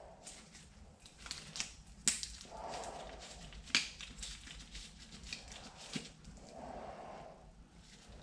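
Scattered light clicks and knocks as paint cans, a catalyst can and a plastic mixing cup are handled on a workbench, with soft breathing in between.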